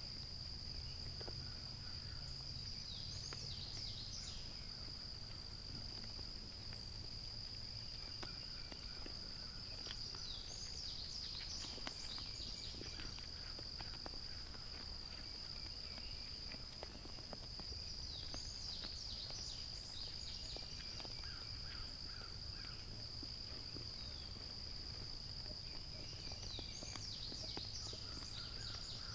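Evening insect chorus: a steady high-pitched trill, broken about every eight seconds by a brief cluster of chirping calls, over a low steady rumble.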